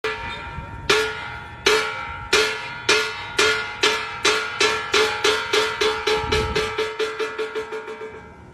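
Vietnamese funeral percussion: a ringing instrument struck about two dozen times, the strokes speeding up from under one a second to several a second while fading away, each stroke's ring overlapping the next.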